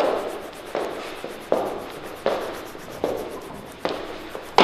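Slow, regular footsteps on a hard floor, one step about every three-quarters of a second, each with a short echo, the last step the loudest.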